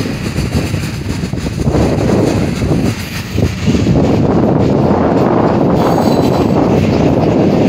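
Freight train rolling past, a steady rumble of its cars' wheels on the rails, louder and even from about four seconds in.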